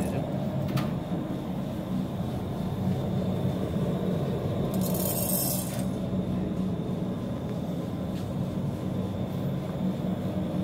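Electric stone mill grinding buckwheat: the motor and turning millstone give a steady running hum. A brief hiss comes about five seconds in.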